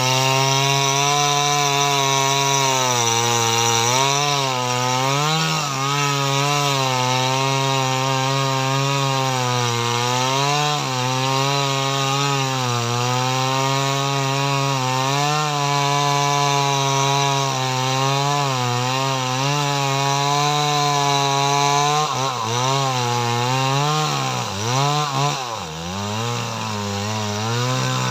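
Small Stihl chainsaw running at high speed while cutting leucaena (lamtoro) wood, its engine pitch wavering as the chain loads in the cut. About 24 seconds in, the engine speed drops sharply and rises again before steadying.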